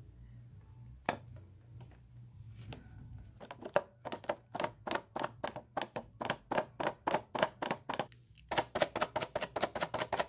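Adhesive tape dabbed repeatedly onto a cardboard box and pulled off to lift sticker glue, making a run of short, sharp tacky taps, about three a second at first, then quicker at about five a second after a brief pause.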